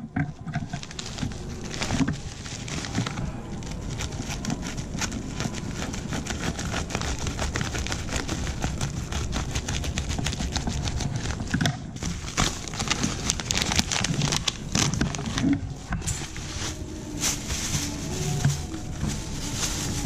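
Plastic courier mailer bag being handled, cut open with scissors and unwrapped. A steady crinkling and rustling of plastic with many small crackles.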